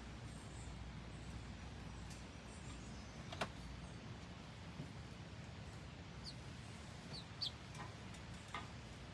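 Chicks giving a few short, high, falling peeps in the second half, over a faint low hum, with one sharp tap about three and a half seconds in.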